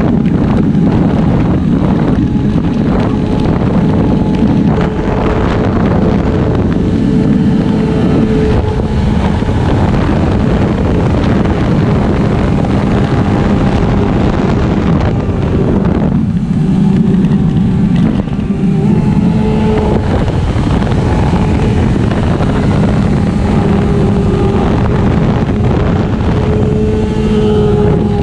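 1999 Yamaha YZF-R6 race bike's 600 cc inline-four running hard at high revs, heard onboard, its note changing pitch a couple of times with throttle and gear changes. Wind buffets the microphone throughout.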